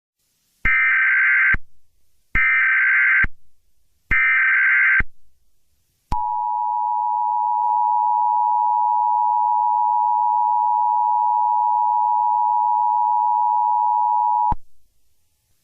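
Emergency Alert System test: three short screeching SAME digital header bursts, each a little under a second long and about a second apart. Then the EAS two-tone attention signal (853 and 960 Hz together) holds steady for about eight seconds and cuts off sharply.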